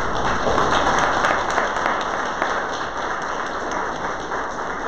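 Audience applauding, loudest in the first second or two and then slowly fading.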